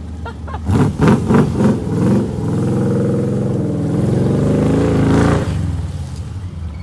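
Jeep CJ-5's AMC V8 engine idling, then blipped up several times in quick succession about a second in, followed by about three seconds of steady high revs that fall back to a low idle.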